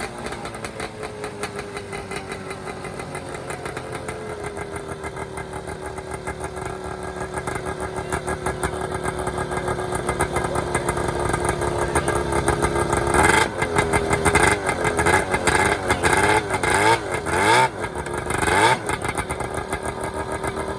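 Vintage Arctic Cat ice-racer snowmobile's two-stroke engine running: its pitch eases down at first, then holds steady while slowly getting louder. About two-thirds of the way in it is revved hard in a series of quick throttle blips for several seconds, then drops back to a steady run near the end.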